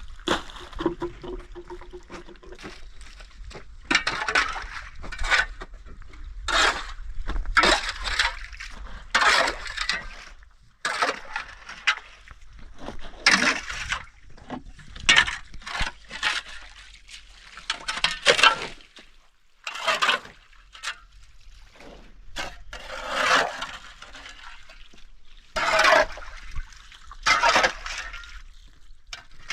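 Water splashing by hand at a spring pond in repeated irregular splashes, roughly one a second, as the pond is cleaned out and clothes are washed.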